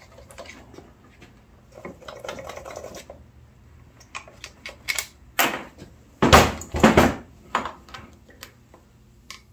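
Scattered metal clicks, scrapes and clanks as a screwdriver pries apart the crankcase halves of a Suzuki LT250R two-stroke engine. Two loud knocks come about two-thirds of the way through.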